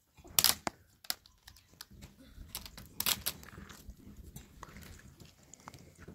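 Wire grill grates clinking and scraping against a sheet-metal brazier, a string of sharp metallic knocks with the loudest about half a second and three seconds in, over crunching and rustling from the ash in the tray.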